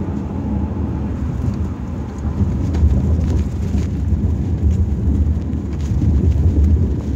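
Loud, low rumbling noise, uneven in level, with a few faint clicks.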